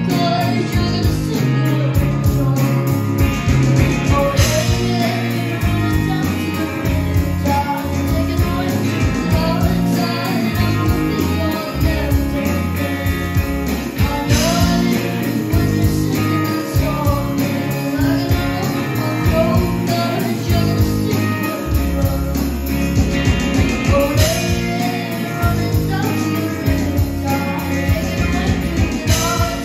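Cutaway acoustic guitar strummed in a steady rhythm, with a voice singing a melody over it.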